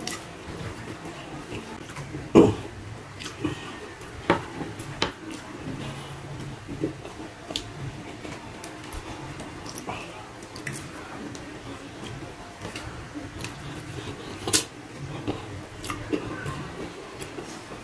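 Close-up eating sounds of a man eating rice and stewed stingray with his hands: chewing and lip smacks with many short, sharp mouth clicks. There is one louder thump about two and a half seconds in.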